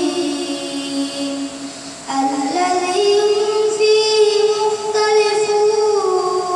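A boy singing solo into a microphone in long, drawn-out held notes; one phrase fades out about two seconds in and a new, higher phrase begins.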